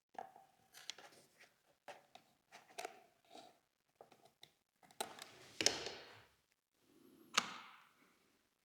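Small clicks, taps and rustles of fingers handling double-sided adhesive tape and small parts on a camera's viewfinder housing, with a longer scraping rustle about five seconds in and a sharp click a couple of seconds later.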